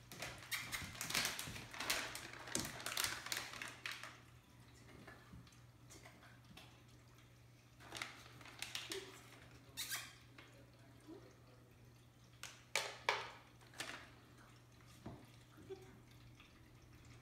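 Scattered light clicks and rustles, bunched in the first few seconds and then sparse, over a pet water fountain trickling with a steady low pump hum.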